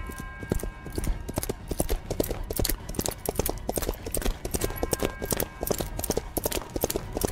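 Horse hooves clip-clopping in a steady run of hoofbeats, about four or five a second.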